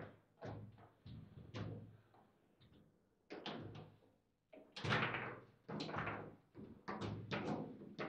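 Foosball table in play: irregular hard knocks and clacks of the ball striking the figures and table walls, with rods banging as they are worked. There is a short lull about two seconds in, then the knocks come faster.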